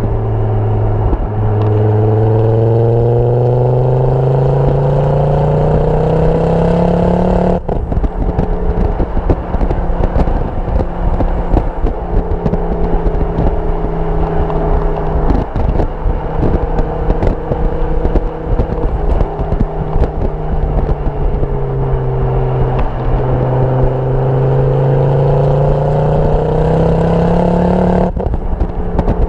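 Ford Focus RS Mk2's turbocharged 2.5-litre five-cylinder engine heard at the tailpipe of its Milltek exhaust while driving. The exhaust note rises under acceleration, drops suddenly about seven seconds in, runs roughly level, then climbs again and drops once more near the end. Heavy wind buffeting on the microphone throughout.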